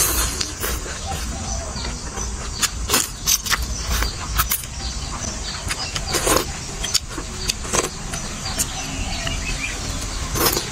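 A person eating noodle soup: slurping noodles and sipping broth off a spoon, with many short wet clicks and smacks of chewing, over a steady low rumble.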